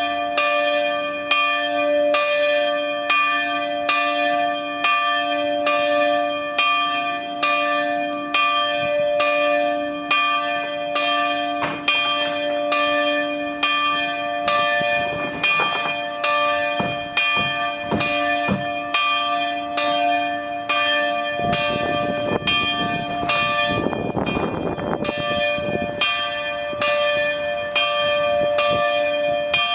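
Church bell swinging and ringing in steady, evenly spaced strokes, about one and a half a second, each stroke's ringing running into the next.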